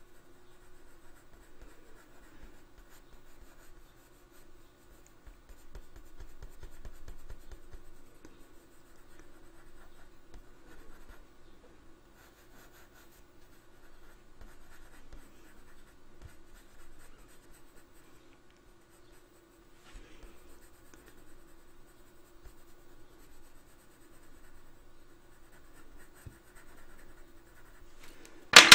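Colored pencil point scratching softly over paper in small shading strokes, with a faint steady hum underneath. A single sharp click comes near the end.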